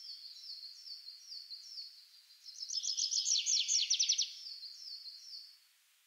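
Songbird singing: a string of high, down-slurred notes about two a second, with a faster, louder run of rapid notes in the middle; it stops shortly before the end.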